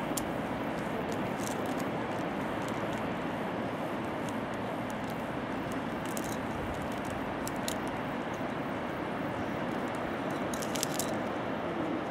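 Steady rushing of a white-water mountain river below, an even unbroken noise, with faint high clicks now and then.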